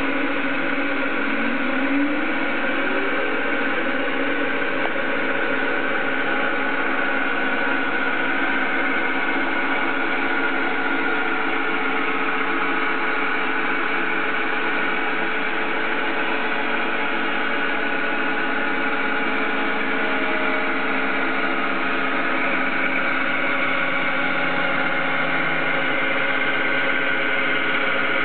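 Small CNC lathe boring a recess, its spindle motor and the stepper motors driving the saddle and cross slide running together: a steady machine whine made of several held tones, with a short rising tone about two seconds in.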